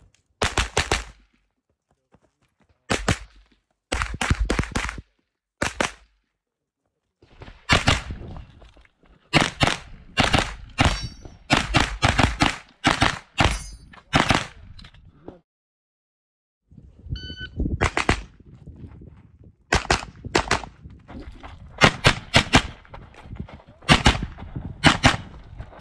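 9mm pistol-caliber carbine firing fast strings of shots, often in quick pairs, broken by short silent gaps. About two thirds of the way through, a short electronic shot-timer beep starts a new string of fire.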